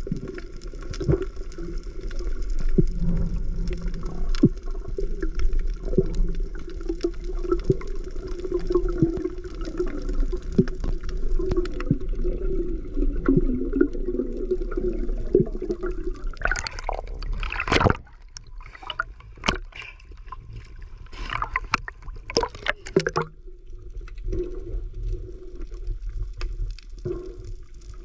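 Underwater sound of water moving past a camera carried by a swimming freediver: a steady low rush with scattered clicks. About two-thirds of the way through comes several seconds of sharp bubbling gurgles, after which the rush is quieter.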